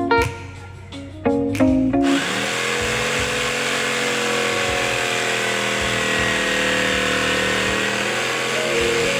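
Guitar music for about two seconds, then an electric palm router starts and runs steadily at speed with a high, even hiss.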